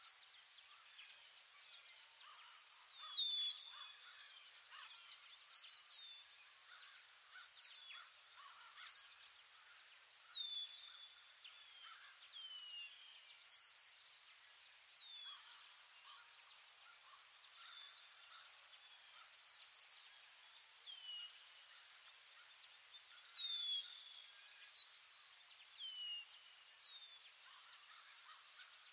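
Forest ambience: a steady, rapidly pulsing high insect trill, with a bird repeating short, high chirps that slide downward every second or two.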